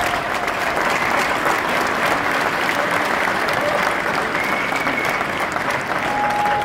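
Audience applauding steadily: many hands clapping at once, with a few faint pitched calls over the clapping.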